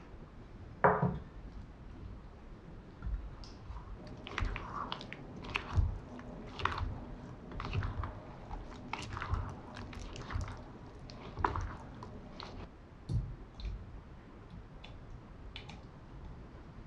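A silicone spatula stirring rolled oats, yogurt and chopped strawberries in a glass measuring jug: irregular wet squelching and crunching with light scrapes and taps against the glass. A sharp knock about a second in is the loudest sound, with a few smaller knocks later.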